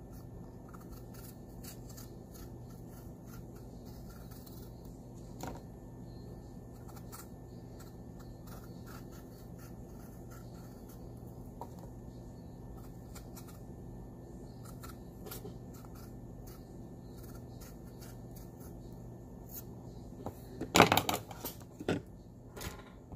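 Vegetable peeler scraping the skin off a cucumber in faint, repeated scratchy strokes over a faint steady hum. About two seconds from the end come a few loud knocks.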